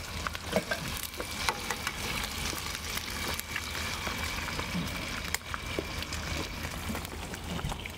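Food sizzling and frying on a camp stove, a steady hiss with scattered small crackles and pops.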